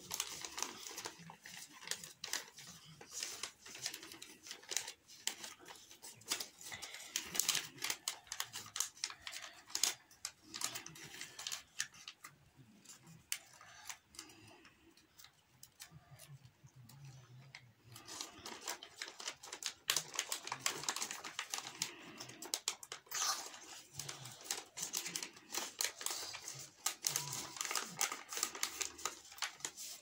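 A sheet of paper being folded and creased by hand: quick, crisp rustles and clicks. It thins out to a quieter stretch in the middle, then picks up again.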